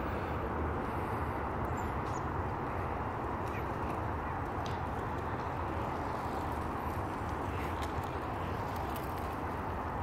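Steady hum of distant road traffic, with a few faint, short, high chirps from small birds scattered through it.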